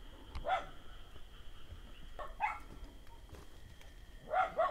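A dog barking a few times: single barks about two seconds apart, then two quick barks near the end.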